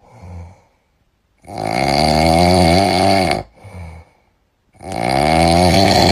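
Loud, rattly snoring: two long snores of about two seconds each, each one preceded by a short, soft breath.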